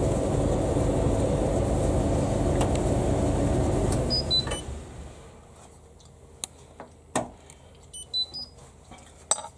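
Indesit IVL85SD tumble dryer's drum motor and fan running with a steady low rumble, cutting out about four and a half seconds in. Then short electronic beeps and a few clicks from its control buttons being pressed.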